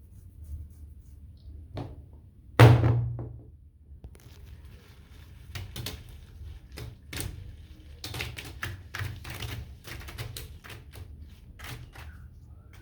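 Rubber balloons being handled, with one loud sudden bang about two and a half seconds in that dies away over a second, then a long run of quick taps and clicks.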